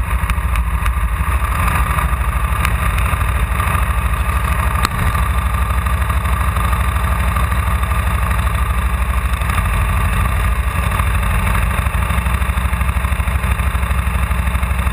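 KTM 990 SMR's V-twin engine idling with a rapid, even pulsing beat.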